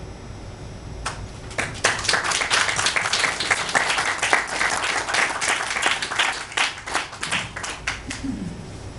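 Audience applauding: a few scattered claps about a second in, swelling into dense clapping that thins out and stops near the end.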